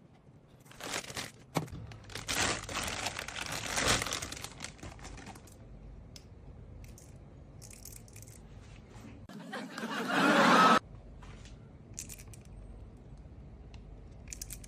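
Paper and plastic packaging crinkling and tearing as a new spinning reel is unboxed. The loudest stretch is a harsh rustle about ten seconds in that cuts off suddenly.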